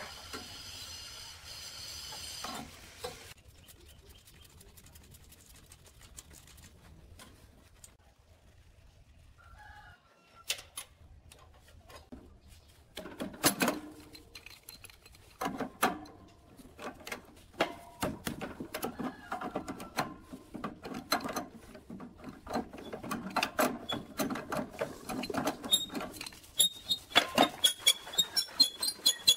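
Scattered clinks, knocks and scraping of metal hand tools and compressor fittings being loosened and handled, with quiet stretches between. Near the end comes a quick, even run of sharp clicks.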